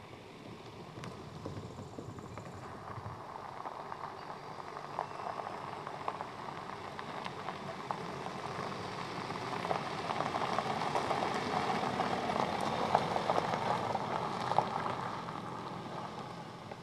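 VW Passat Alltrack's tyres crunching slowly over gravel, with many small pops and clicks of stones, growing louder as the car comes near and passes, then fading as it drives away near the end.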